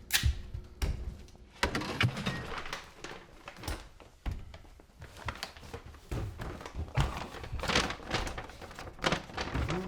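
Irregular knocks, thuds and clatter of household things being handled and set down while moving in.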